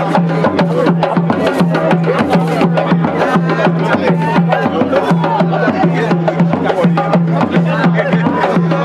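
Hand drumming on a tall barrel-shaped hand drum, played as a fast, steady, unbroken rhythm with a deep pulsing tone under sharp slaps.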